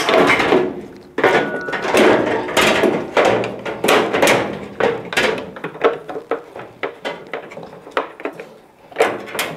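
Washing machine drum suspension springs being worked off their hooks: a run of short metal clanks, clicks and rattles.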